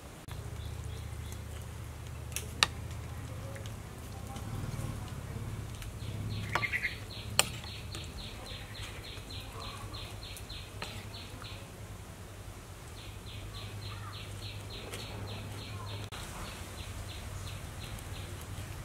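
Rural outdoor ambience: a steady low hum under a run of high, evenly spaced chirps, about four a second, that stops and starts again, from a bird or insect. Two sharp clicks stand out, one a few seconds in and one near the middle.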